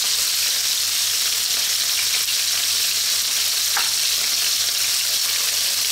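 Thin slices of pork liver frying in hot oil in a non-stick pan, the second side searing after being turned over: a steady, even sizzle.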